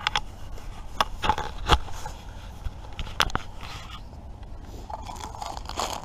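Crinkling and rustling of a plastic instant-noodle packet being handled over an aluminium mess tin, with several sharp clicks and knocks, and a denser stretch of crinkling near the end.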